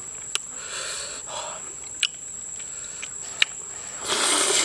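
Cooked river prawn being peeled by hand: the shell cracks in a few sharp clicks. Near the end comes a loud slurping suck as the prawn is eaten.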